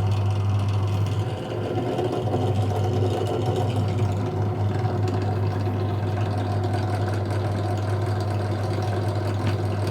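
ZJ4113 benchtop drill press motor and spindle running steadily with a strong low hum.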